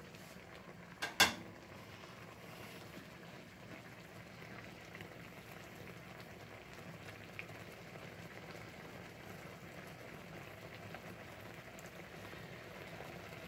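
Black tea broth with chicken breast and pineapple simmering in a frying pan, bubbling steadily as it reduces toward a gravy. One sharp knock sounds about a second in.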